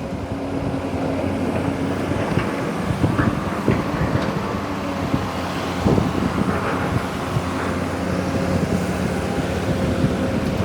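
Long-arm excavator's engine running steadily with a hum under hydraulic load, with a few short knocks, the clearest a little after three seconds and near six seconds.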